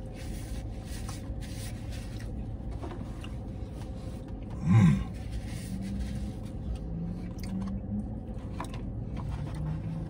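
A man eating a burger close to the microphone: soft chewing, and rustles and clicks from the food and its wrapper, over a steady low rumble. About five seconds in comes one short, loud grunt-like vocal sound rising in pitch. After it, low murmured "mm" sounds come and go.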